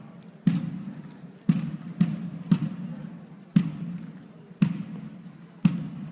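Marching band's bass drum beating time, about one stroke a second with an occasional extra stroke in between, each boom ringing on in the large hall.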